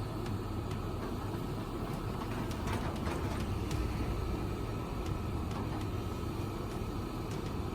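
Diesel engine of a working excavator running steadily as a low rumble, with a few faint clicks.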